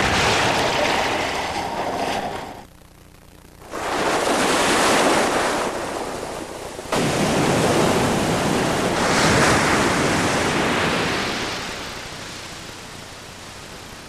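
Killer whales breaching and crashing back into the sea: heavy splashes one after another, each a rush of churning water that fades away. There is a short lull about three seconds in, and the last splash dies down gradually near the end.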